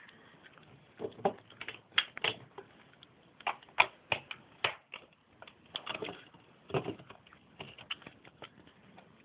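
Plastic Lego pieces clicking and clattering as they are handled and pressed together, in irregular short taps, some in quick clusters.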